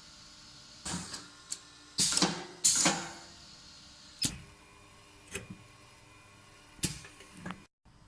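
A thermal measured-cut machine with a rotating knife working: a run of irregular mechanical clacks and short motor whirs, the two loudest a second or so apart near the middle.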